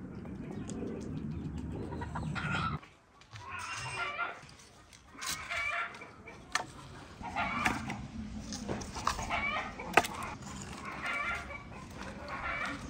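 Chickens clucking with short calls repeating about once a second. Sharp wooden knocks come as split firewood logs are picked off a woodpile and gathered in the arms, the loudest one about ten seconds in.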